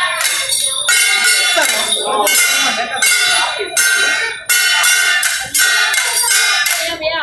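Metal percussion from a temple procession: loud, rapid strikes in a steady rhythm of about three a second, each ringing like a bell.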